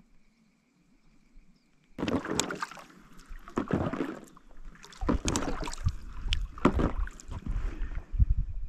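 Near silence for about two seconds, then canoe paddling: irregular splashes of paddle strokes in the water and knocks of the paddle against the hull, with a low rumble joining in about halfway.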